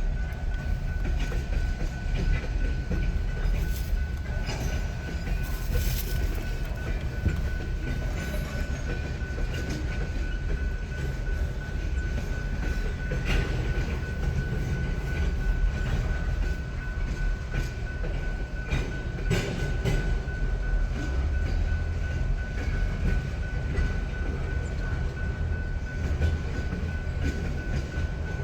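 Freight train cars rolling past at low speed, with a steady low rumble, scattered clicks and clacks of wheels over rail joints, and a thin steady high-pitched tone.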